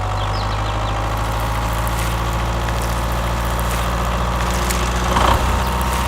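Engine idling with a steady, even low hum.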